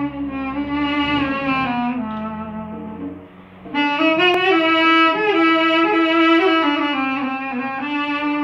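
A wooden wind instrument playing a slow melody in long held notes over a lower steady tone, with a short break about three and a half seconds in before the tune resumes louder.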